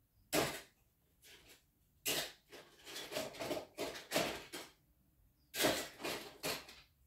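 Rummaging: things being shifted and rustled on a shelf in several short bursts, with a longer spell in the middle.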